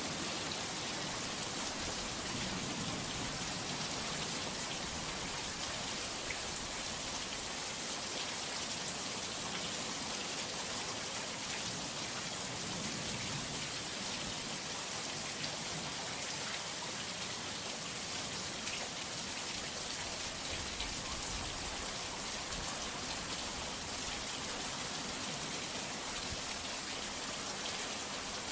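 Heavy rain pouring steadily, a dense, even hiss of countless drops.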